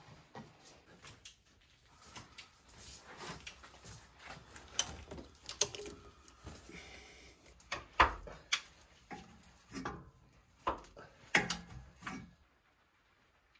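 Hand tools clinking and knocking on metal engine parts while the engine is unbolted: a scattered run of clicks and knocks, with the loudest knock about eight seconds in. It stops shortly before the end.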